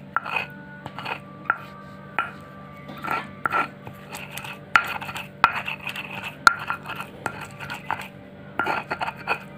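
Kitchen utensils clinking and scraping against dishes: a string of irregular sharp knocks, some ringing briefly.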